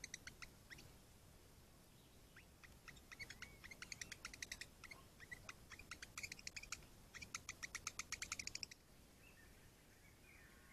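Songbird calls: runs of rapid, sharp chirps, about eight a second, repeated in several runs and stopping about nine seconds in.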